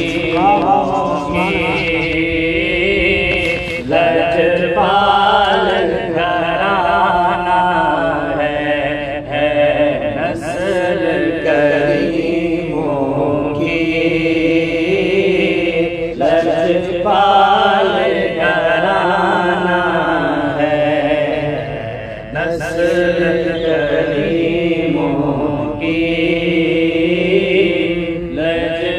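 A voice chanting a devotional recitation in a melodic, sung style, with held, wavering notes in phrases broken by short pauses every few seconds.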